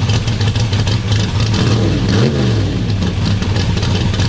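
Engine with a small camshaft running steadily, blipped once a little over two seconds in so the pitch rises and falls back.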